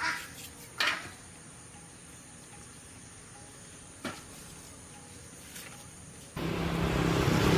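A few light knocks, then about six seconds in a small motorcycle engine suddenly starts running steadily.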